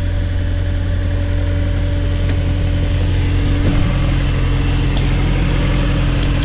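Engine of a Case/Davis D100 backhoe running steadily. About four seconds in there is a knock and the engine note shifts slightly.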